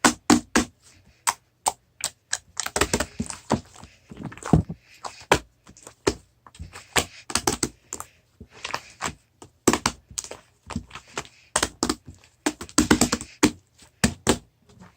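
Irregular clicks and taps of small hard objects handled on a desk, some in quick runs, stopping just before the end.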